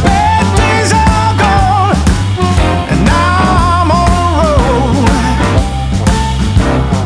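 Background rock music with a steady drum beat, bass and a melodic singing or lead line.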